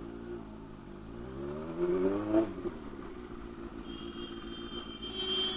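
Motorcycle engine pulling away, its note rising steadily for about two seconds, then dropping at a gear change and running on evenly. A steady high tone joins about four seconds in.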